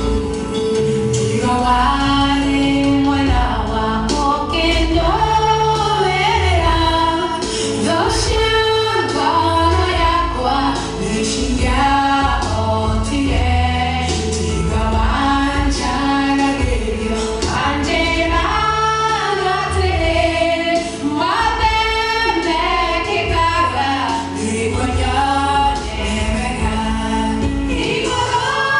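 A small vocal group of mostly women, with one man, singing a song together over accompaniment with a low bass line.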